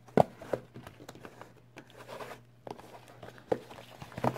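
A cardboard shipping box being handled on a table: a sharp knock right at the start, then a few lighter knocks and scrapes as fingers work at its taped-shut flaps.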